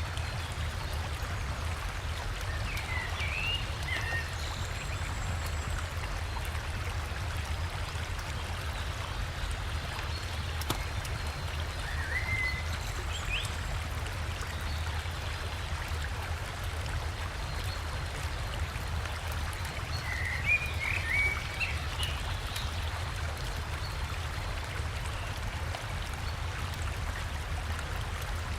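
River water rushing steadily over a small waterfall, with a deep low rumble under the splashing. A bird gives short bursts of chirps three times: near the start, about halfway through, and again a little later.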